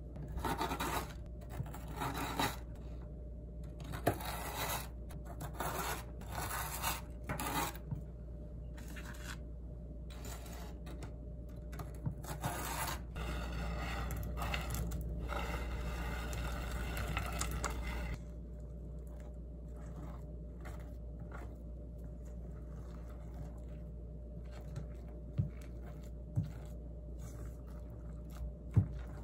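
Silicone spatula scraping and folding thick cream in a stainless steel bowl in repeated strokes, then scraping crushed chocolate sandwich cookies off a wooden board into the bowl. A few sharp taps near the end.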